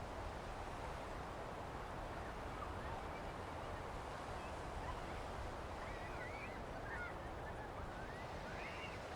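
Steady wash of sea surf and wind on a sandy beach, with a few faint bird calls coming in from about six seconds in.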